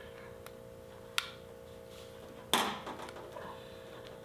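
Diagonal wire cutters snipping at the thin crimped aluminum ring holding an old diaphragm on a Keihin CV carburetor slide: a sharp click about a second in and a louder snap about two and a half seconds in, with a few small ticks around them over a faint steady hum.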